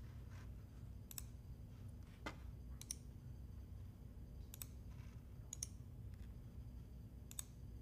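Computer mouse clicking as files are right-clicked and copied and pasted through context menus: about six faint, sharp clicks spread a second or so apart.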